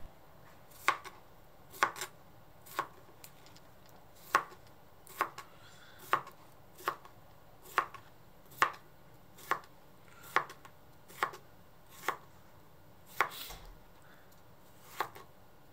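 Kitchen knife chopping a cucumber into chunks on a plastic cutting board: crisp knocks of the blade through the cucumber onto the board, about one a second at a steady, unhurried pace.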